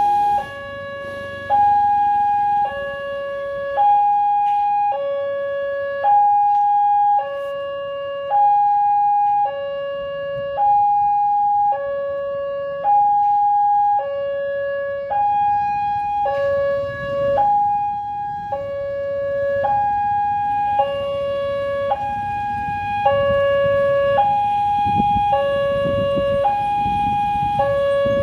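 Railway level crossing warning alarm sounding its two-tone electronic signal: a higher and a lower tone alternate, each about a second long, repeating steadily while the barrier is down, the sign of an approaching train. A low rumble builds underneath near the end.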